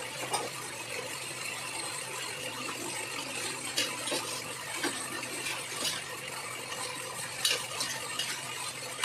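Metal spoon scraping and knocking against the inside of a steel pressure-cooker pot as chicken pieces in masala are stirred, a few sharp clinks from about four seconds in, over a steady hiss.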